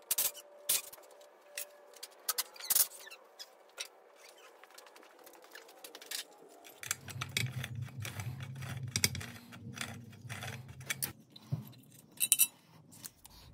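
Irregular metallic clinks, clanks and knocks of tools and hardware being handled and hung on a garage wall, with a low hum for a few seconds in the middle.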